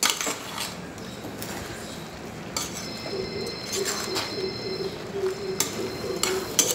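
Steel spoon stirring a thick mix of vegetables and coconut paste in a pan, with short scrapes and clinks of metal on the pan several times. A faint, wavering low tone runs underneath from about halfway through.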